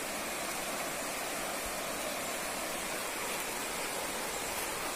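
A shallow river running over rocks: a steady, even rush of water.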